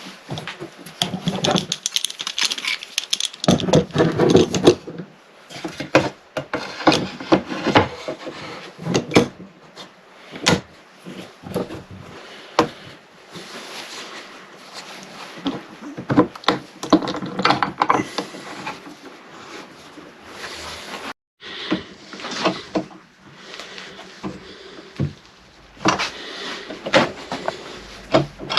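Wooden bed slats and clamps being handled during a glue-up: irregular knocks, clicks and scraping of wood on wood.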